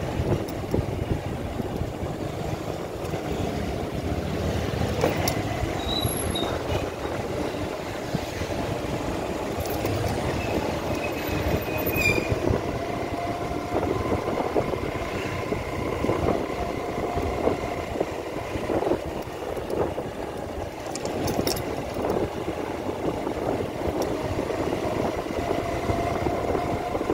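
Motorcycle running on the road while being ridden, with a rough rumble of wind and road noise over its engine note. The engine note climbs slowly twice as it accelerates.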